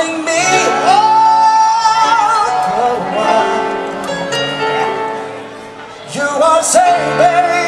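A live band playing through PA speakers, with singing in long held notes over a steady bass line. The music eases off in the middle and swells again about six seconds in.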